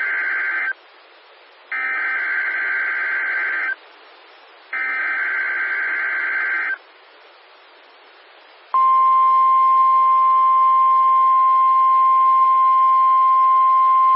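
NOAA Weather Radio weekly test signal. The first part is three buzzing bursts of SAME digital header data, each about two seconds long with a second's gap between them; the first burst is already under way. About nine seconds in, the steady 1050 Hz weather alert tone starts and holds, the signal that switches on warning receivers.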